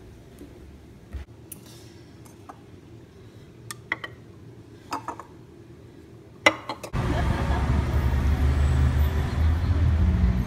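A few light clicks and clinks over a quiet background. Then, about seven seconds in, a sudden cut to the loud, steady low rumble of a car driving.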